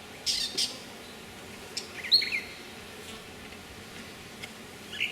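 Honey bee colony humming steadily around an open hive. Two short hisses come about half a second in, and a bird chirps once about two seconds in.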